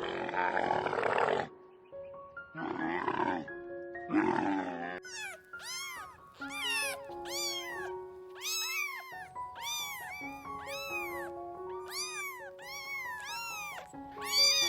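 Animal calls over background music: a few rough, noisy calls in the first few seconds, then a run of short arched chirps, about two a second.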